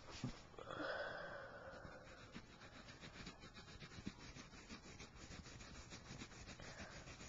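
Graphite pencil scratching and rubbing on paper as lines are drawn, faint, in many short strokes. Near the start a louder breathy hiss lasts about a second and a half.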